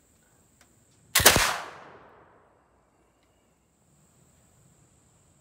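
Flintlock rifle firing a single shot about a second in, its report trailing off over about a second. A faint click comes about half a second before the shot.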